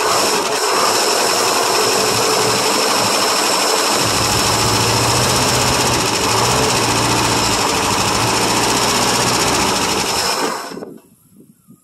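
International 392 V8 running loudly and steadily after a cold start on a long-dormant engine, then cutting out abruptly near the end.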